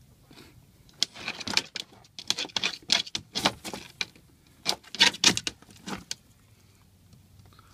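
A hen scratching and rustling in dry leaves and torn cardboard scraps on a wooden cage floor: bursts of quick, scratchy rustles from about a second in until about six seconds in.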